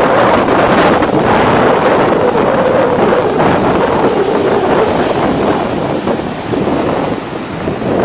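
Wind buffeting the microphone: a loud, steady rushing noise with no bird call in it, easing slightly near the end.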